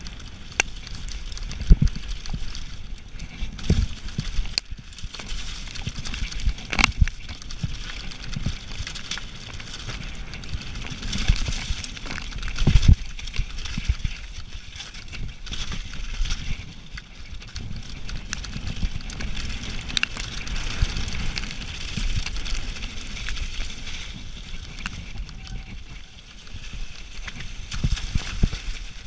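Specialized Demo 7 downhill mountain bike descending loose rocky scree at speed: tyres crunching over gravel, with frequent irregular knocks and rattles as the bike hammers over rocks, heard close from the handlebars.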